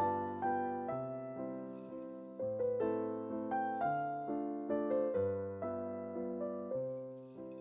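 Background piano music, each note or chord struck and left to fade, a new one coming roughly every half second.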